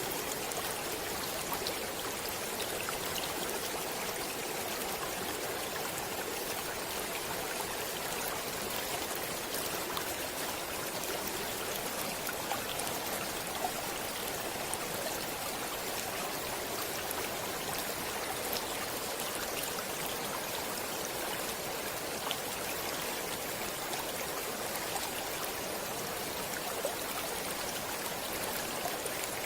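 Water of a stream flowing steadily, an even rushing with small splashes now and then.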